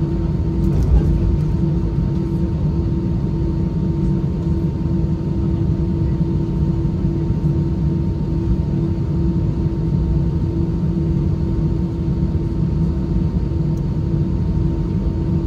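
Steady cabin noise inside an Airbus A320-214 on the ground before takeoff: a low rumble under a constant droning hum, unchanging throughout.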